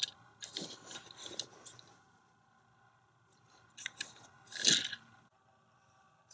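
Fingers handling a die-cast Hot Wheels toy car on carpet: soft scrapes and rustles in the first second and a half, then quiet, then a brief louder crunchy rustle a little over four and a half seconds in.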